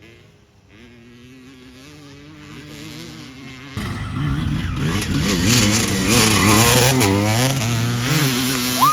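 Dirt bike engines out on the race course: a faint engine drone grows steadily louder, then about four seconds in a bike comes in close and loud, revving up and down. Right at the end a sudden high, steady tone starts.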